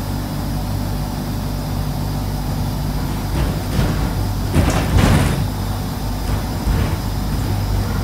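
Alexander Dennis Enviro 200 bus running, its engine heard as a steady low hum from inside the saloon. About halfway, a few short noisy bursts, the loudest near five seconds in.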